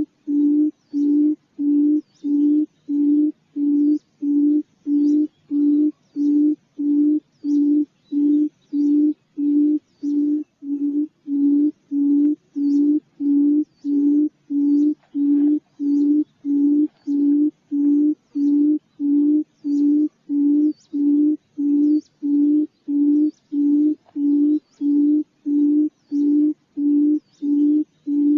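Quail call used as a trapping lure: a low hooting note repeated steadily about twice a second, every note alike.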